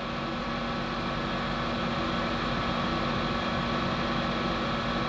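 Steady whir of a small electric motor or fan, with a hum of several steady tones, growing slightly louder.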